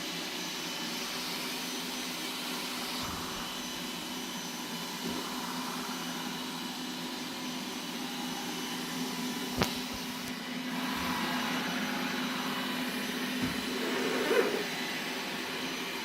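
Qihoo 360 S6 robot vacuum running: a steady whir of its suction fan with a thin high whine, and one sharp knock about ten seconds in.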